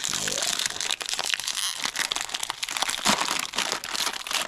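Plastic cookie packaging being torn open and crinkled by hand, a dense crackling rustle with many small snaps.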